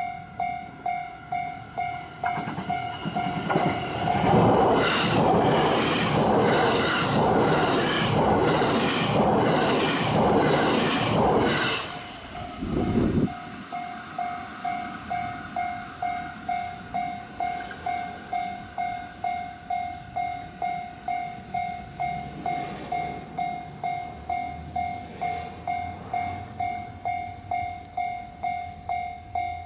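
Level crossing warning bell ringing in an even repeating beat, about one and a half strokes a second. From about three seconds in, it is drowned out for some eight seconds by a JR West electric train running past over the crossing, its wheels clattering. After the train has gone, the bell rings on.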